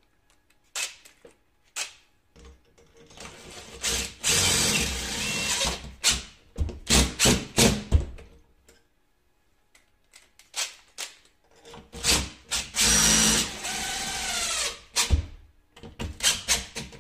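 Cordless brushless drill-driver driving the fixing screws of a uPVC window handle home, in two runs of a few seconds each. Short clicks and knocks of handling come between and around the runs.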